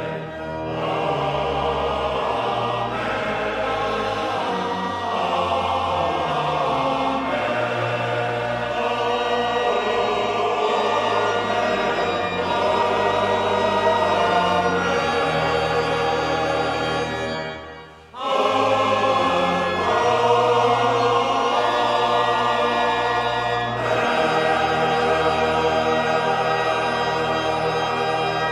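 Recorded music with voices singing together. It breaks off briefly about two-thirds of the way through, then carries on.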